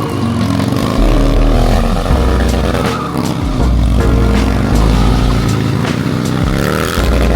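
Motorcycle engine revving up and down repeatedly during stunt riding, its pitch rising and falling several times.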